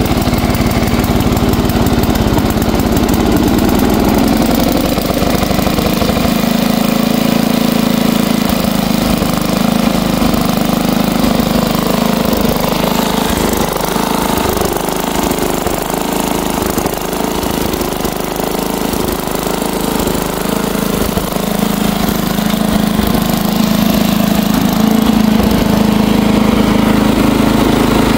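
Bolens 1050 garden tractor's 10 hp single-cylinder engine, just fired up on the starter, picking up speed over the first few seconds and then running steadily.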